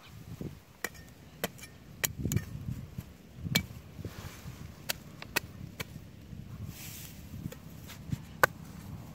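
A meat cleaver chopping and shaving a thin stick held upright: sharp, separate knocks of the blade on the wood at uneven intervals, roughly one a second, with soft rustling between strokes.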